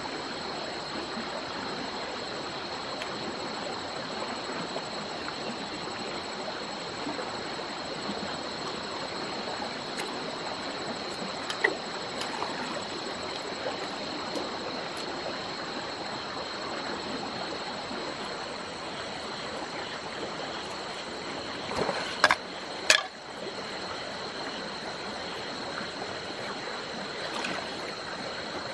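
Rocky stream running steadily, with a steady high insect drone from night crickets over it. A few sharp knocks sound over the water, the loudest two about half a second apart a little over two-thirds of the way in.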